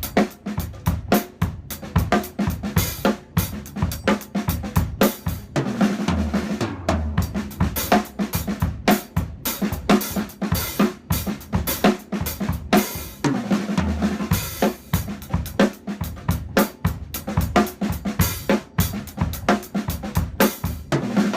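Drum kit played continuously: a fast linear sticking exercise of single strokes spread over snare, hi-hat and bass drum, going back and forth between the left-hand-lead and right-hand-lead versions.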